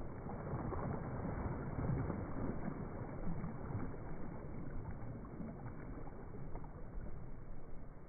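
Small, gentle sea waves lapping and washing onto a sandy beach, a little louder from about one to three seconds in, then easing.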